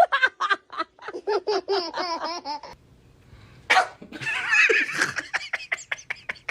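Laughter in quick, rhythmic pitched bursts, then a pause, a short sharp burst of breath, and more laughing.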